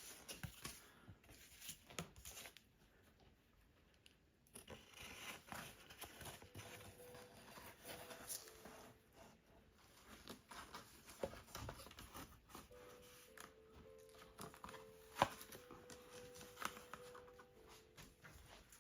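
Faint handling sounds of material being fitted in place: scattered light clicks and rustling, with a quiet gap a few seconds in.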